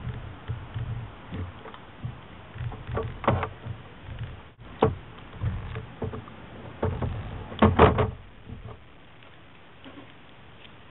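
Hands cutting and prying at a rubber mold to free a tooth held in it by suction: rustling and handling of the rubber, with scattered sharp clicks and knocks of tools, the loudest about eight seconds in, then quieter.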